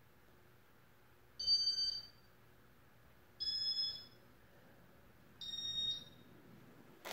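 Three electronic beeps about two seconds apart, each about half a second long, then a short click near the end.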